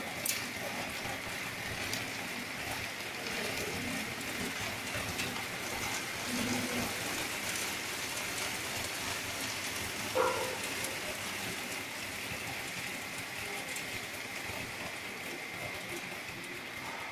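An optical color sorter running on dehydrated garlic, making a steady hiss with a thin steady tone above it. There is a brief louder sound about ten seconds in.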